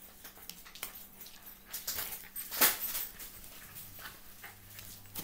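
Rustling and small knocks from things being handled close to the microphone, with one loud sharp knock about two and a half seconds in.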